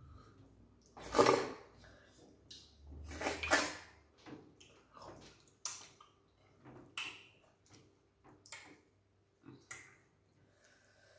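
Close-up eating sounds of people eating starch with okra soup by hand: two louder wet slurps about a second in and around three to four seconds in, then a run of short lip smacks and chewing clicks.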